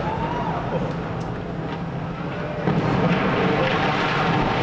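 Rumble of a tall smokestack coming down in a demolition. The rumble grows louder about two and a half seconds in, as the stack reaches the ground.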